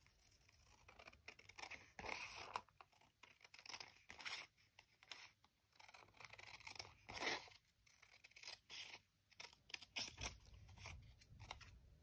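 Scissors cutting through a strip of paper in an irregular run of short snips, with the paper being handled between cuts.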